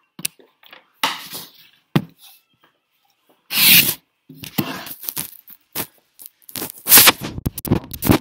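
Handling noise from a phone camera being picked up and carried: irregular rubs, scrapes and knocks against the microphone. The loudest is a scrape about three and a half seconds in, followed by a cluster of sharper knocks near the end.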